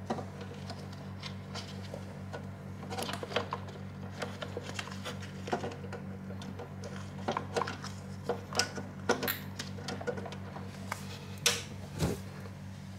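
Scattered small clicks and knocks of hands handling cables and plugs at the back of a desktop PC case, over a steady low hum.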